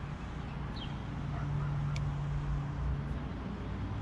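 A steady low engine hum from a vehicle in the background, louder for about two seconds in the middle, with a small click about two seconds in and a few faint bird chirps.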